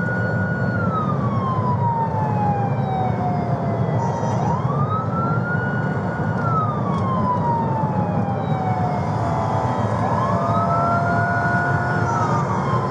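Police car siren on a slow wail, rising quickly, holding, then falling slowly, about every five seconds, heard from inside a moving patrol car. Steady engine and road noise runs beneath it.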